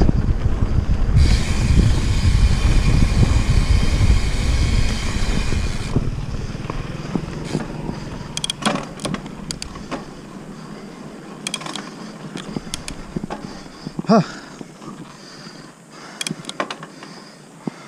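Wind buffeting the action camera's microphone and tyre rumble as a Santa Cruz Megatower mountain bike rolls fast down a dirt trail; after about six seconds it eases into lighter clicks and rattles of the bike over the ground. A brief pitched sound stands out a few seconds before the end.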